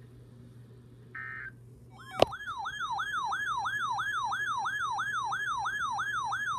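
Weather radio receiver's alert siren going off for an incoming warning: a sharp click a little past two seconds in, then a loud warbling tone sweeping up and down about three times a second. Shortly before it comes a brief burst of data tone.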